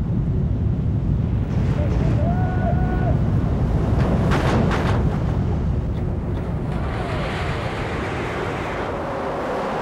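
A loud, steady, low rumbling roar that slowly eases off through the second half, with a few faint gliding tones and brief sharp hissing streaks about four to five seconds in.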